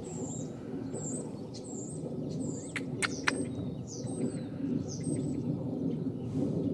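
A small bird chirping over and over, short high falling chirps about once or twice a second, over a steady low background rumble. Two or three sharp clicks come about three seconds in.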